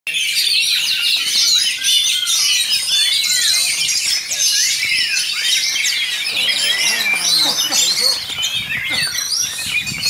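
Many caged songbirds singing at once: a dense chorus of overlapping chirps and trills, with one rising-and-falling whistled note repeated over and over.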